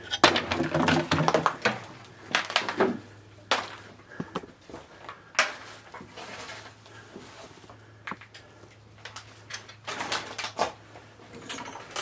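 Rusted metal chainsaw parts and basement debris clattering and scraping as they are handled and set down: a string of knocks and rattles, busiest in the first three seconds and again about ten seconds in, over a faint low hum.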